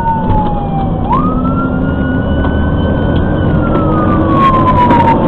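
Fire engine siren wailing, heard from inside the cab. Its pitch falls slowly, jumps back up quickly about a second in, holds, then falls slowly again, over steady engine and road noise.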